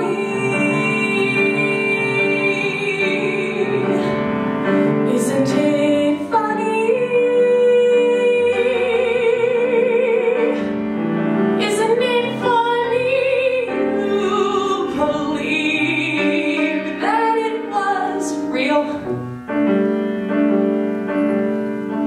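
A female soloist singing a musical-theatre ballad into a microphone with live piano accompaniment, holding long notes with vibrato.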